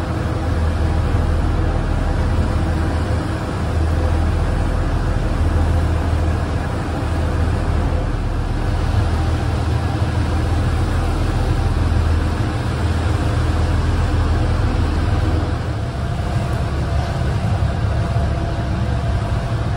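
A ferry's engine running steadily with a deep hum and a few steady tones, with wind and water rushing over it.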